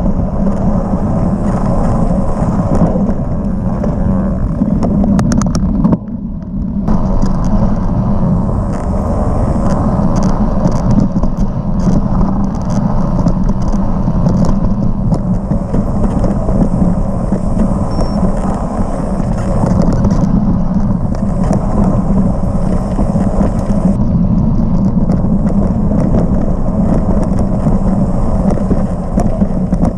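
Steady wind buffeting and trail rumble on a mountain bike rider's action camera during a dirt singletrack descent, with the bike's rattle over the rough ground. The noise drops briefly about six seconds in.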